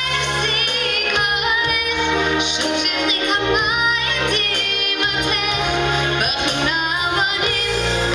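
Girls singing a song with a solo voice leading, over instrumental accompaniment with sustained bass notes, amplified through microphones in a large hall.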